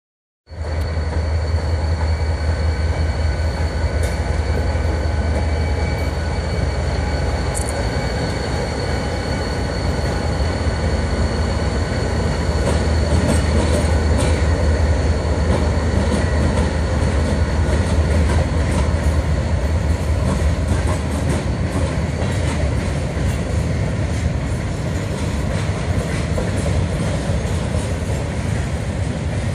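Norfolk Southern freight train passing close by: diesel locomotives rumble heavily, then covered hopper cars roll past, wheels clattering on the rails. A steady high whine runs through roughly the first half.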